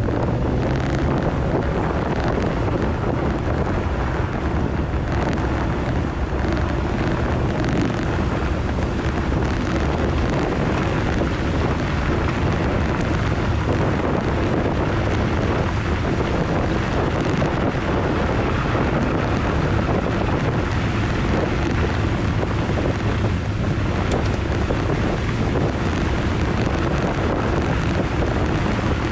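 A Jeep's engine running at a steady speed while driving, with heavy wind buffeting the microphone throughout.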